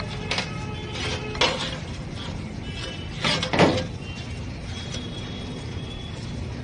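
Steel spanner clinking and scraping on a car steering rack's adjuster as it is unscrewed, a few sharp metallic clinks with brief ringing, the loudest about three and a half seconds in.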